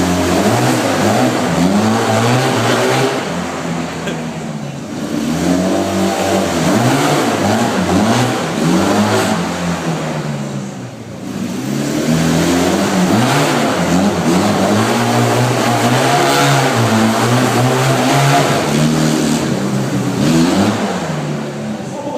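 Barossa Apache 250 cc engine being revved up and down over and over, its pitch rising and falling every couple of seconds, with a couple of short lulls between runs of blips.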